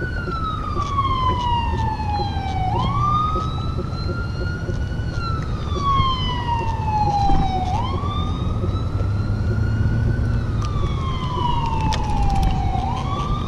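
A siren wailing, its pitch sliding slowly down and then sweeping back up in a cycle of about five seconds, three times over. Under it are a low rumble and a few scattered clicks.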